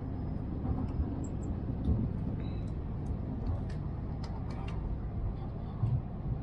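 Steady low rumble inside the cabin of a moving Tohoku Shinkansen Yamabiko bullet train, with a few faint light clicks.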